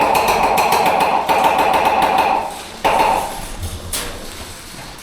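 Airsoft gun firing on full auto: one long burst of about two and a half seconds and a short burst near three seconds, with a metallic ring.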